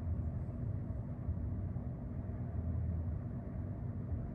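Steady low background rumble with a low hum in it that swells and eases slightly.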